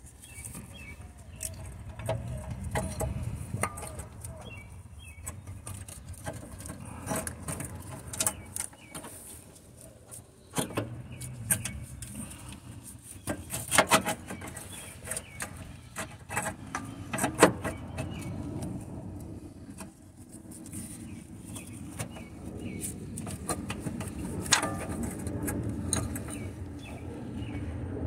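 Scattered metal clicks and clinks over a low, shifting rumble of handling noise, from hands and tools working at the engine mount bolts; a few sharper knocks stand out past the middle.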